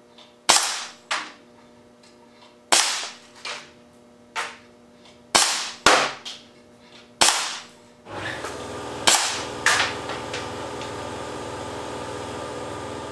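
Air cannon shots striking an LCD monitor: about a dozen sharp cracks at uneven intervals, some half a second apart, each with a short ringing tail. After about eight seconds a steady hum of several tones starts under the last two shots.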